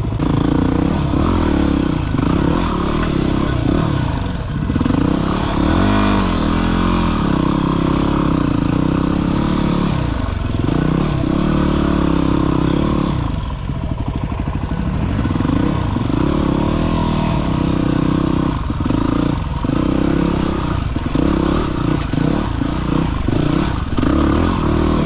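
Dirt bike engine running under load while riding up a rough hillside, revs holding high and dropping briefly several times as the throttle is rolled off and reopened, most often near the end.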